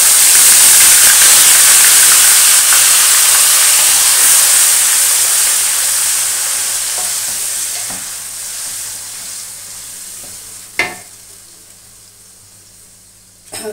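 Onion paste frying in hot oil in a karahi: a loud sizzle that dies down steadily as the onion's water cooks off, with a wooden spatula stirring through it. A single sharp knock comes about eleven seconds in.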